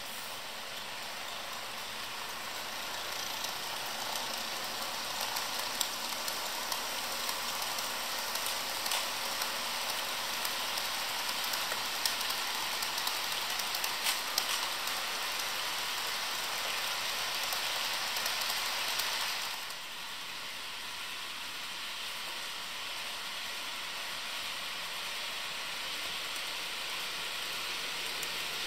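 HO scale model trains running on sectional track: a steady rushing hiss of wheels and motors with small clicks scattered through it. It swells over the first few seconds, drops suddenly about two-thirds of the way in, then goes on a little quieter.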